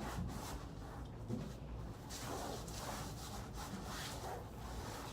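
Soft, irregular rubbing and rustling of glued wallpaper being pressed and smoothed onto a soffit.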